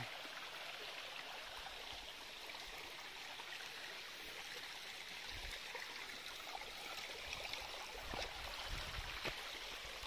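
Shallow rocky stream flowing steadily over and between stones, an even rushing, trickling wash of water. A few soft low bumps come in the second half.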